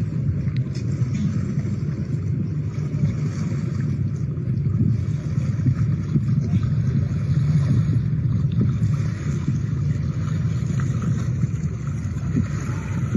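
Steady low rumble of a boat under way on the water.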